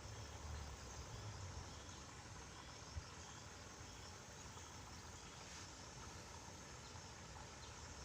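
Faint outdoor ambience of insects chirping with a high, thin drone, over a low rumble that eases after the first couple of seconds; one soft click about three seconds in.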